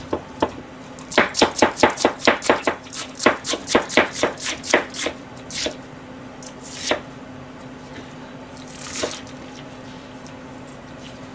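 Kitchen knife chopping bok choy on a plastic cutting board: a quick run of cuts, about five a second, for several seconds, then a few single cuts spaced apart.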